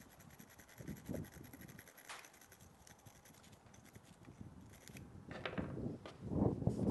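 A small copper wire brush scrubbing carbon off an AR-15 firing pin: fine, rapid scratching strokes for about five seconds. Near the end, louder handling knocks as parts are moved on the bench.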